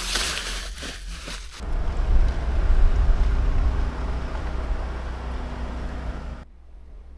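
Tent fabric rustling and hissing at the opened door for about a second and a half, then a steady low rumble of wind buffeting the microphone in the snow, which drops away shortly before the end.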